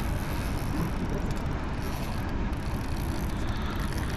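Small boat's outboard motor idling in neutral, a steady low rumble.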